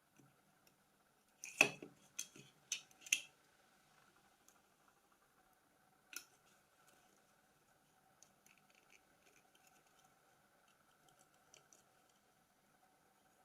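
A quick run of about five sharp clicks, a single click a few seconds later, then faint light ticking: small tools and plastic phone parts being handled while a phone is taken apart.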